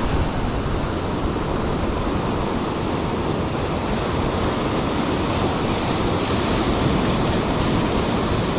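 Ocean surf washing steadily onto a rocky shore, with some wind buffeting the microphone.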